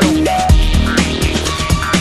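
Electronic dance music with a heavy bass beat and synth lines.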